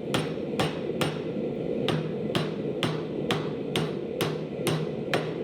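Hammer striking hot square steel bar on an anvil to forge a handle, in an even rhythm of about two blows a second over a steady low rumble.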